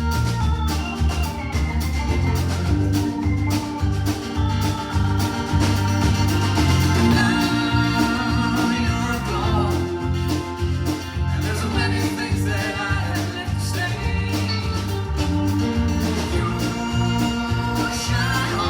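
Country-rock band playing a song live, with a steady bass line and drum beat under sustained keyboard and guitar notes.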